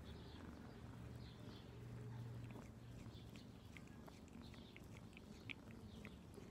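Faint sound of a domestic cat licking its paw as it grooms: small, quick wet tongue clicks, mostly in the second half, over a low hum that fades about halfway through.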